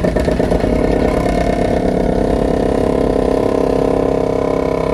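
Excavator working hard, heard from inside its cab: engine and hydraulics running at high load with a fast, even pulsing, as when driving a wooden piling.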